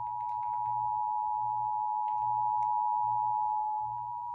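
Emergency Alert System attention signal from a TV speaker: a steady two-tone 853/960 Hz tone, getting louder over the first second as the TV volume is turned up. It announces an emergency alert, here a severe thunderstorm warning.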